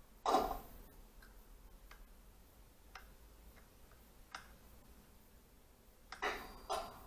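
A single knock about a quarter second in, then a few faint, irregularly spaced ticks, and a cluster of clicks and knocks near the end.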